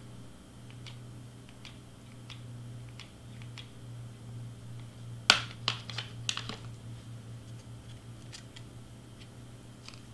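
Light clicks and handling taps as a hot glue gun and a cardstock piece are worked, then a sharp plastic clack a little over five seconds in, followed by a few smaller knocks, as the glue gun is set back in its stand. A low steady hum runs underneath.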